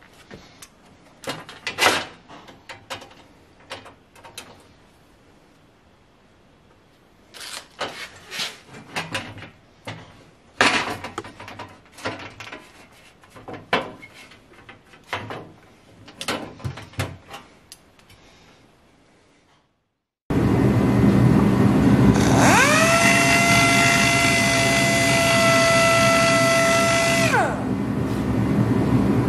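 Clicks and knocks from small parts being handled and tapped for most of the first twenty seconds. Then a power tool runs loudly: a steady rushing noise with a motor whine that spins up to a steady pitch, holds for about five seconds and winds down near the end.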